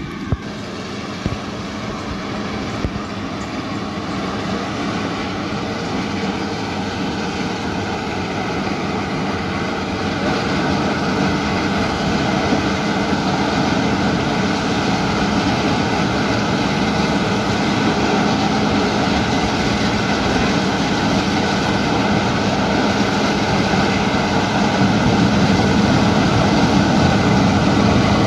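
A large engine running steadily with a low hum, growing gradually louder. A couple of faint clicks come in the first few seconds.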